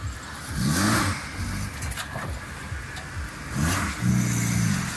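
Small 4WD jeep's engine revving under load as it crawls over rocks in a shallow riverbed. The revs rise and fall about a second in, then climb again and are held high near the end.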